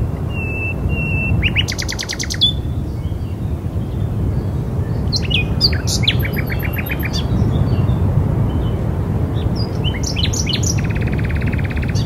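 Songbirds calling over a steady low rush of wind. A few short held whistles come at the start, a fast trill about two seconds in, scattered chirps and a rattling trill in the middle, and a buzzy trill near the end.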